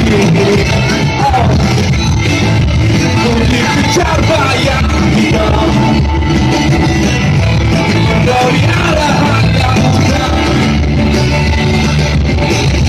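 Rock band playing live: electric guitars and drums at a steady loud level, with a sung lead vocal over them.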